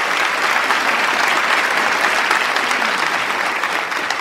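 Audience applause: dense, steady clapping that eases off slightly near the end.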